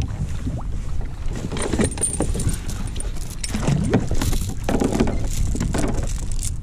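Wind rumbling on the microphone of a kayak, with scattered knocks and light metallic clinks and rattles as gear is handled aboard.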